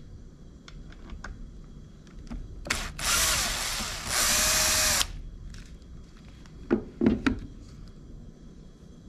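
Cordless drill/driver backing out the T20 bolts that hold the air filter cover on a Ryobi two-stroke string trimmer: a short blip of the motor, then two runs of about a second each, the second ending about five seconds in. Two or three knocks follow about seven seconds in.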